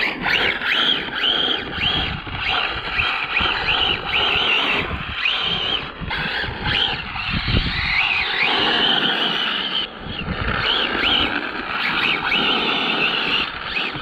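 ARRMA Limitless RC car's electric motor whining up and down in pitch again and again as the throttle is worked during a high-speed run, over a rushing noise of tyres and wind. The sound drops away at the very end as the car cuts out, which the driver takes for overheating.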